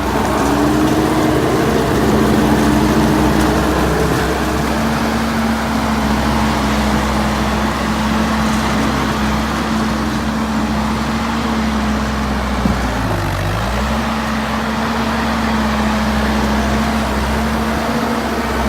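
Engine of a 2011 C190 tracked skid steer running steadily at high revs under work, with one brief dip in engine speed about two-thirds through that quickly recovers.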